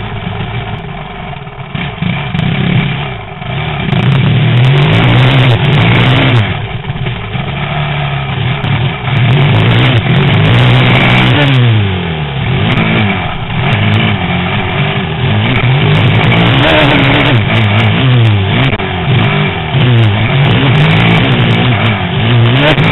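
Motocross bike engine heard from an on-board camera, revving hard through the gears. Its pitch climbs and drops again and again with each shift, and it gets much louder about four seconds in as the rider opens the throttle.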